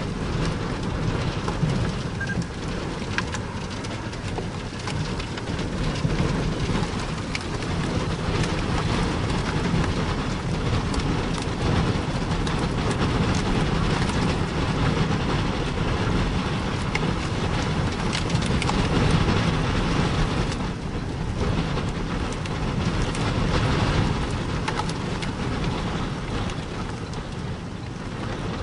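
Steady rain, a dense hiss of drops with a low rumble underneath.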